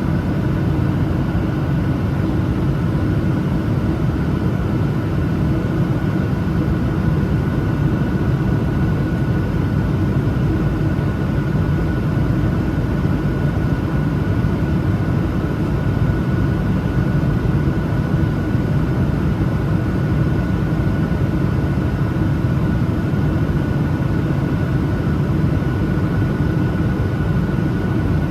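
Steady cabin noise of a Boeing 737-900ER in flight: the CFM56-7B engines drone under the rush of air past the fuselage, with a faint steady high whine above.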